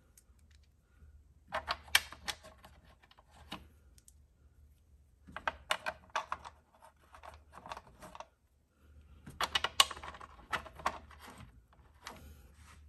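Rapid clicking and tapping of screws and fingers on a plastic engine cover as its 10 mm screws are started by hand, in three spells of a couple of seconds each.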